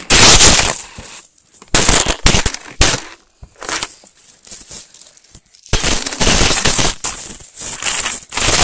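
Coins jingling and clattering loudly right against a phone's microphone, in bursts at first, then a quieter stretch of about two seconds, then near-continuous from about six seconds in.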